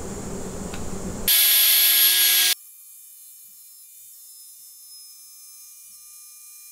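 Ryobi MTR-42 trim router running and routing a groove in plywood. A steady lower hum gives way about a second in to a loud high-pitched whine, which cuts off abruptly after just over a second to a much fainter steady whine.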